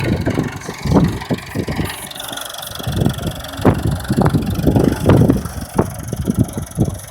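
Massey Ferguson 178 tractor's diesel engine running, with an uneven low rumble that swells and dips.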